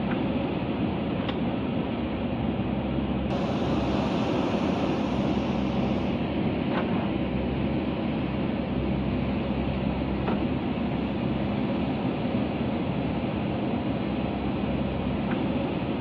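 Backhoe loader's diesel engine running steadily under load while its hoe arm digs and scrapes soil, with a few faint clicks.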